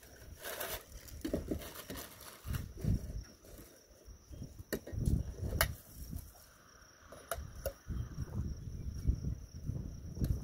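Wind gusting on the microphone, with crinkling and a few sharp clicks of plastic wrapping being pulled off a kayak paddle.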